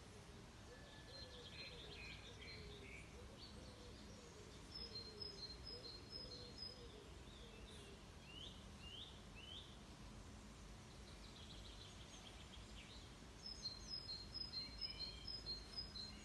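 Faint songbird calls over a low outdoor background noise: a run of five or six quick, even, high notes about five seconds in, another near the end, and scattered short chirps between.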